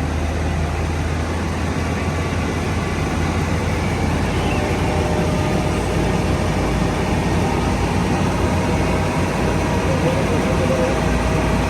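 Tour boat's engine running steadily under way: a constant low hum beneath a broad rushing noise.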